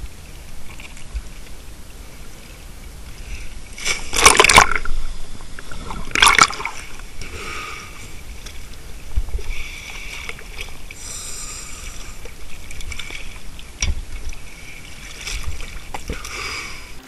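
Sea water sloshing and lapping right at the microphone as a diver floats at the surface, with two loud splashes about four and six seconds in.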